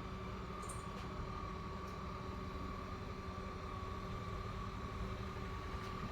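A steady machine hum: a constant high whine over a low drone, the kind of sound a small motor or fan makes, with a few faint ticks.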